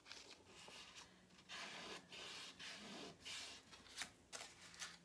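Fingers rubbing painter's tape down onto the edge of a wooden box frame: faint rubbing strokes in several short spells, with a couple of light knocks from the frame near the end.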